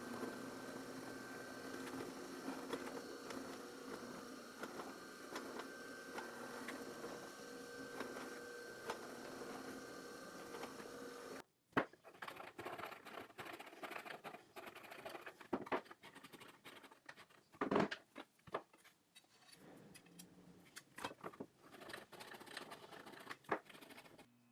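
A power tool shaping a knife handle runs steadily with a constant hum for about the first half. After a sudden break, irregular scraping, clicking and tapping from handwork on the handle follows.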